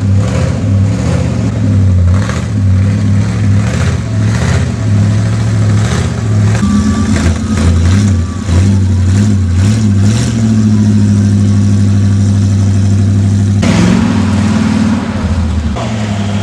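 An off-road competition 4x4's engine revs up and down under load while the truck claws through a muddy gully, with repeated sharp knocks over the first ten seconds. The engine then holds a steadier, even note, and the sound changes abruptly about 14 seconds in.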